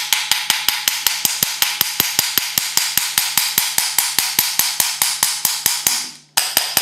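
Rapid, even tapping on the small electric motor of a Renault Scenic's electric parking brake unit, about six taps a second, with a brief pause near the end. The motor is being tapped to loosen it and knock out dust, the owner suspecting worn brushes.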